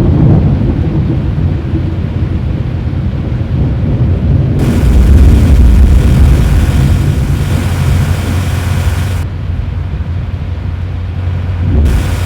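Thunderstorm sounds: a loud, continuous thunder rumble, with a heavy hiss that comes in suddenly about five seconds in and cuts off about four seconds later, then returns briefly near the end.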